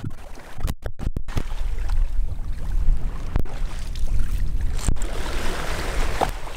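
Wind buffeting the microphone over choppy, splashing sea water, with the sound dropping out in a few short gaps about a second in.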